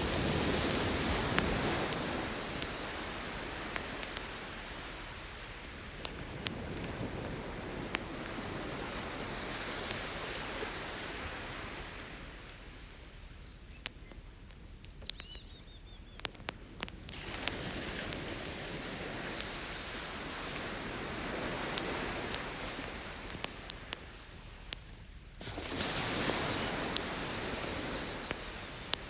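Ocean waves washing onto the beach in slow swells that rise and fall every several seconds, with a campfire's wood crackling in scattered sharp pops throughout.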